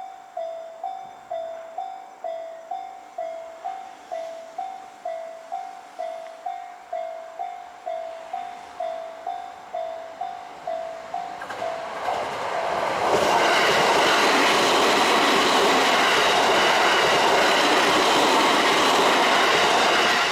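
Japanese level-crossing warning bell ringing in a steady alternating two-tone ding, about one and a half strikes a second. About twelve seconds in, an electric train passes over the crossing with loud wheel and rail noise that drowns out the bell.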